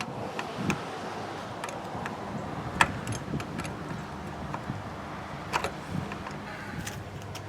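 A few scattered metallic clicks and clinks of hand tools at the battery as the cleaned cable terminals are refitted, over a steady low background hum.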